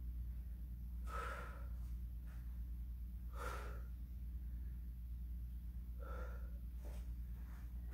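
A person breathing out hard three times, about every two and a half seconds, in time with dumbbell reverse-fly reps, over a steady low hum.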